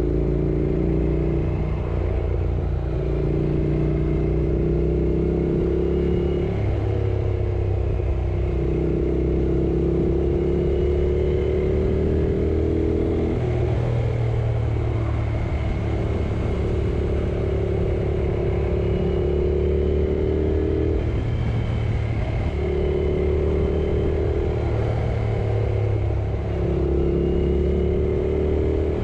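Yamaha R6 sportbike's inline-four engine running under way, its pitch stepping up and down every few seconds as the revs change, over a steady low rumble.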